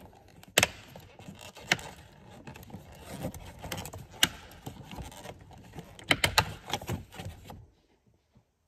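Plastic rocker switches being pried and popped out of a boat's dash panel: sharp plastic clicks and snaps, single ones spaced a second or more apart and then a quick cluster of several about six seconds in, with handling rustle between.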